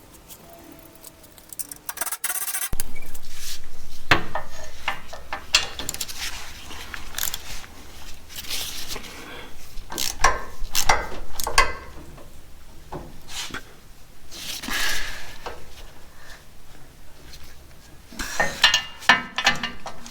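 Metal tools and parts clinking and clanking in irregular knocks while a bumper is being bolted up. About three seconds in there is a louder steady noise lasting a couple of seconds, and a low hum runs on under the knocks.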